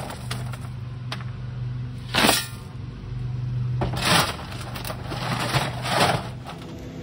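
Shovel scraping into gravel in a wheelbarrow tub, three loud scoops about two seconds apart, over a steady low hum.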